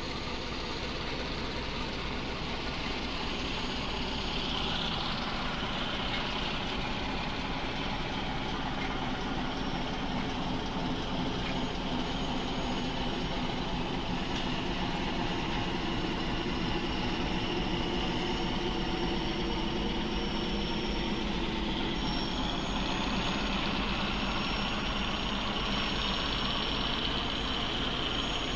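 A train running steadily: a continuous engine and running-gear drone with a whine that slowly wavers in pitch.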